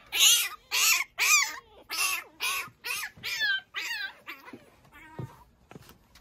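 Pekingese puppy whining in a rapid run of short, high cries, about three a second, fading over the last couple of seconds.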